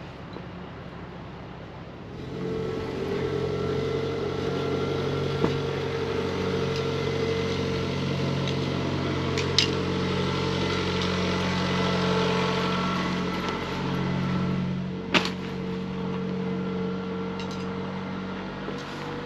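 A motor vehicle's engine running steadily, coming in about two seconds in, with a few sharp clicks or knocks over it.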